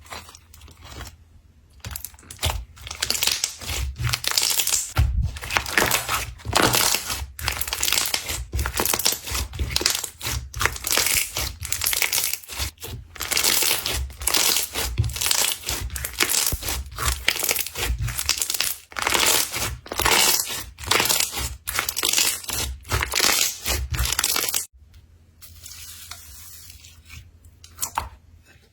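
Slime being squeezed and stretched by hand, making a dense run of wet crackling and popping noises in quick succession. It dies down sharply about four seconds before the end.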